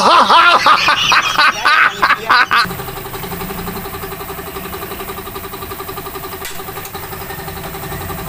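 Loud sounds with sliding, arcing pitch for the first two and a half seconds, then a small engine idling with a steady, even pulse.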